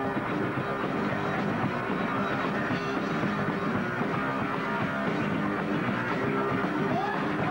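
Rock band playing live, with electric guitar and bass guitar.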